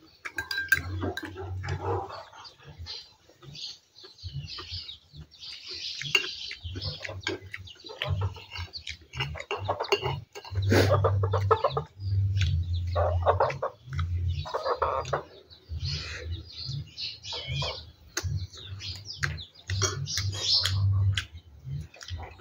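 Domestic chickens clucking again and again, with close eating noises: chewing and short clicks of a spoon against a plate.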